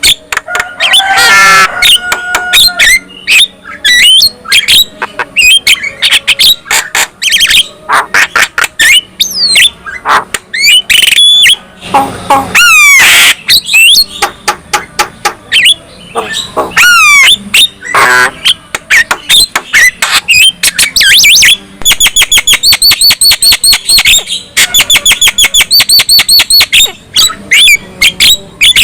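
Javan myna (jalak kebo) singing loudly: a varied stream of whistled glides, harsh squawks and chattering. In the second half come two runs of fast, evenly repeated notes, about five a second.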